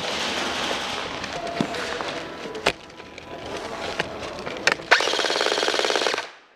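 Airsoft gunfire from a G&P PTS Masada electric rifle: three sharp single cracks, then a fast full-auto burst lasting about a second that cuts off abruptly. A steady rushing noise runs underneath.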